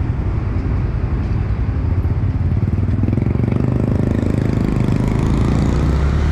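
Honda CB150 Verza's single-cylinder engine running under the rider. Its note rises and gets louder from about three seconds in as the motorcycle accelerates.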